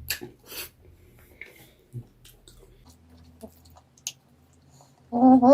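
Close-miked eating sounds: a person chewing noodles and chicken legs, with soft clicks, smacks and small crunches. About five seconds in, a loud, steady hummed "mmm" of enjoyment.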